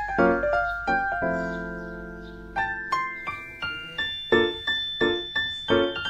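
Background piano music: a run of quick single notes, a chord held for a couple of seconds, then quick notes again in a steady beat.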